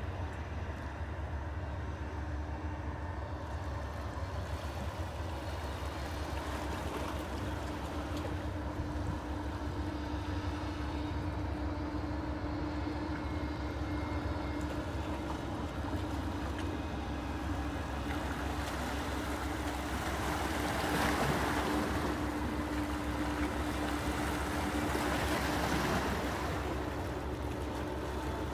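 Steady low rumble of a passing oil tanker with a faint hum, mixed with water washing; the water sound grows louder about twenty seconds in.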